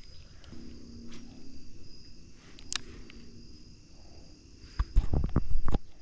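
Insects trilling steadily in the background, with a few sharp clicks and a burst of loud low thumps about five seconds in.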